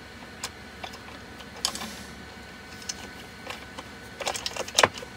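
Small metal clicks and taps of screws and small T-nuts being handled and slid into the slot of an aluminium extrusion, scattered at first, then a quicker cluster of louder clicks about four seconds in.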